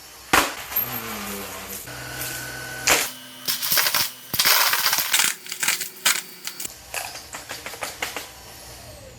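Cordless stick vacuum running while sucking up hard debris: nuts, bolts and broken glass click and clatter through the nozzle over the motor's steady hum, with the clattering densest in the middle.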